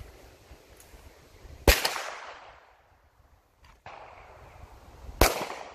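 Two single gunshots about three and a half seconds apart, each ringing off with a long fading echo.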